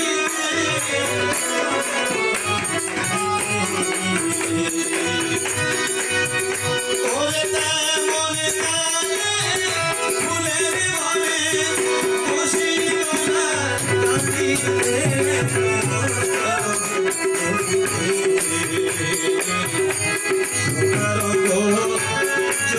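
Live Bengali folk music: a harmonium playing a held melody over tabla and a steady rattling hand percussion.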